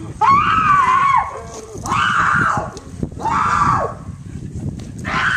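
A young man screaming: four long, high cries, each about a second long, coming about a second apart.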